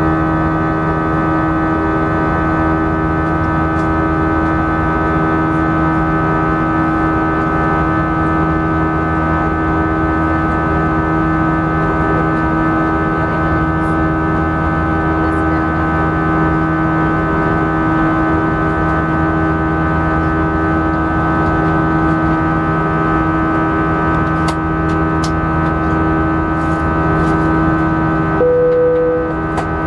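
Airbus A319 jet engines heard from inside the cabin: a steady drone with many fixed whining tones. Near the end a short single tone sounds once.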